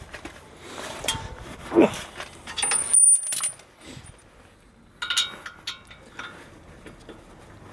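Hand tools working a brake caliper: a socket ratchet on the caliper guide bolt, with scattered metallic clinks and knocks. The loudest clinks come about two to three seconds in, with a short high metallic ring, and another cluster of clinks follows about five seconds in.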